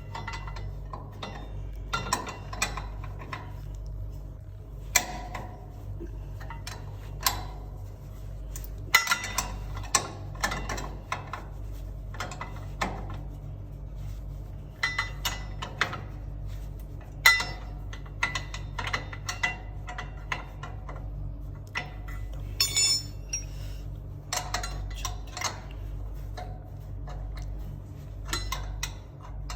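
Irregular metallic clinks, taps and knocks of hand tools and metal parts being worked on a noodle-making machine as its conveyor belt is taken off, over a steady low hum.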